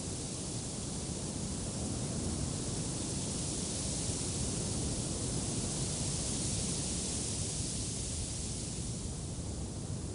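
Wind blowing: a steady noise with a low rumble and a high hiss that swells mid-way and eases off near the end.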